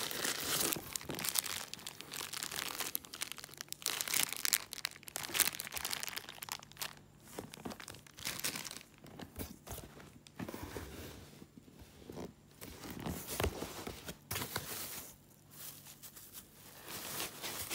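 Plastic wrap and foam packing being handled in a cardboard box: irregular crinkling, rustling and scraping that comes and goes in bursts.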